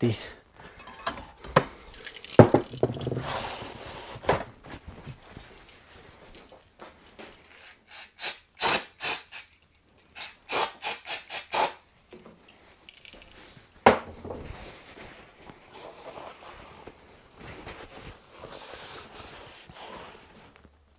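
Aerosol brake cleaner sprayed in two runs of short hissing squirts into a freshly honed small-engine cylinder to flush out the honing grit, about halfway through. Around it come a few sharp knocks of parts being handled, and near the end the soft rubbing of a shop towel wiping out the bore.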